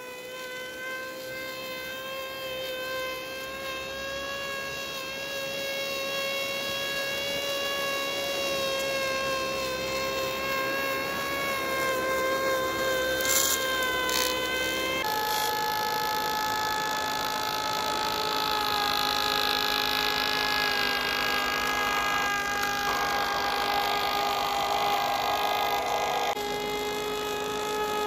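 Electric motors of a G-scale model rotary snow-blower train, a steady whine that grows louder over the first several seconds. About halfway through the pitch of the whine changes abruptly and then holds steady, with a hiss of thrown snow for a while after.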